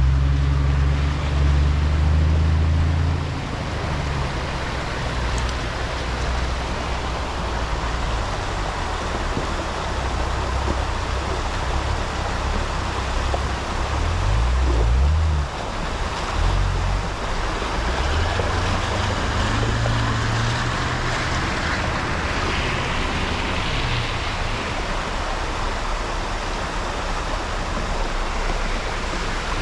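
A 4x4's engine working off-road, loudest at the start, with its pitch rising and falling under the throttle around halfway through and again a few seconds later, over a steady rushing noise.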